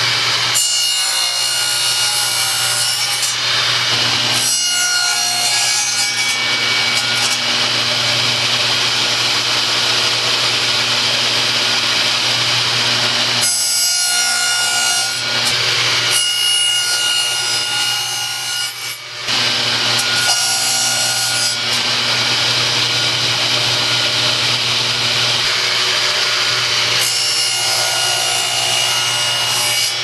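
Craftsman 10-inch radial arm saw running steadily while its blade cuts a notch in a wooden board in repeated passes. About six cutting strokes, each one to three seconds long, ride on the motor's steady hum.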